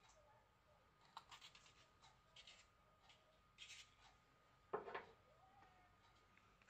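Faint handling of small plastic pots of acrylic nail powder: light scratchy rubs and rustles, and one soft knock nearly five seconds in.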